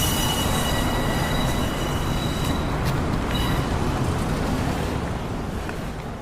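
Train running with a steady rumble and a high metallic wheel squeal that stops about three seconds in and briefly returns. The sound dies away near the end.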